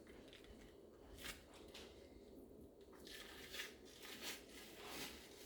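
Faint, scattered rustling, tearing and squishing of the membrane being peeled off the back of a rack of raw ribs with a paper towel.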